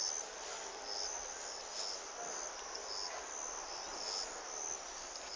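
Insects chirping, cricket-like: short high-pitched chirps repeating about twice a second over a steady outdoor hiss.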